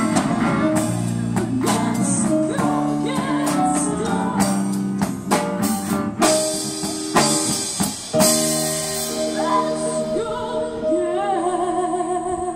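Live band music: a woman singing over electric guitar and a drum kit, with frequent drum and cymbal hits. Over the last couple of seconds she holds a long note with a wavering vibrato.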